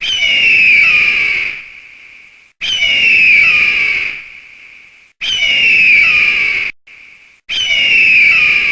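Eagle screeching: four loud, high, drawn-out screams about two and a half seconds apart, each starting suddenly and falling in pitch before fading away.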